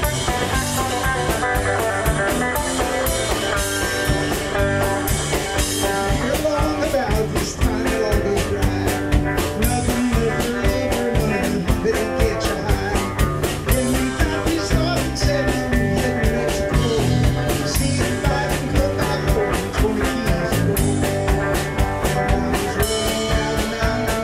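A live band jamming, with electric guitars and a drum kit playing together over a steady drum beat.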